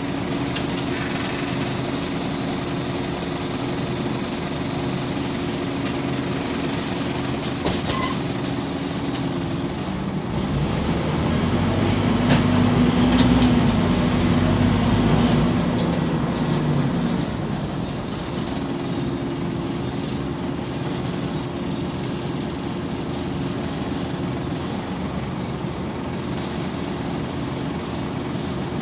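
Scania OmniCity city bus heard from inside the passenger cabin: a steady engine hum, with one sharp click about eight seconds in. About ten seconds in the engine grows louder with a rising drone for several seconds as the bus pulls away, then settles back to a steady hum as it drives on.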